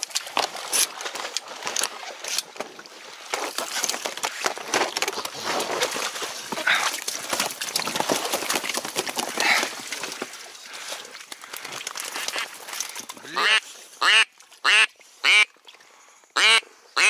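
Close rustling and knocking for the first ten seconds or so. From about thirteen seconds in comes a run of five loud, short duck quacks.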